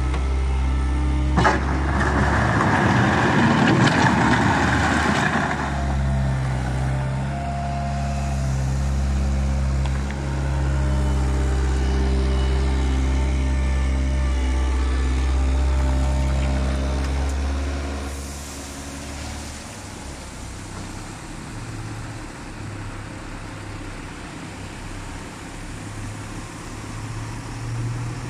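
Diesel engines of a skid-steer loader and a small dump truck running, with a sharp knock and then a few seconds of rattling gravel noise near the start. About two-thirds of the way through the engine sound falls away to a quieter, lower drone.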